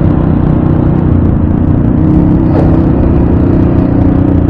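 Motorcycle engine running steadily at a constant pitch, close to the microphone.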